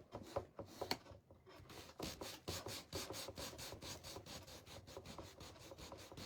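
Coarse-grit sandpaper rubbed back and forth over a painted, Mod Podge-coated cutting board, distressing the surface. A few light scrapes at first, then from about two seconds in quick, even strokes, about five a second.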